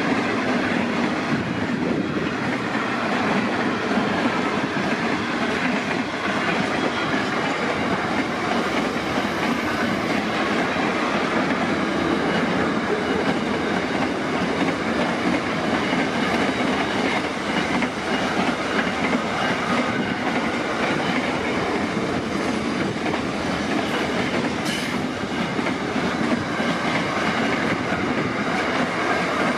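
Long freight train of flat wagons rolling past, a steady noise of steel wheels on the rails, with a brief high squeal near the end.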